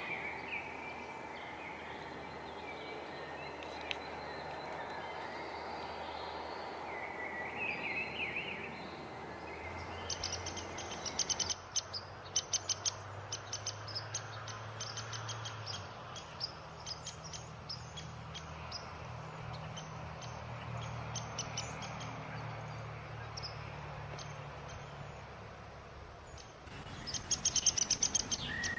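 Wild birds calling outdoors: a few short warbling calls at first, then a long run of rapid, sharp high chips from about a third of the way in, returning as a loud burst near the end. Beneath them is a steady background of outdoor noise with a low hum through the middle.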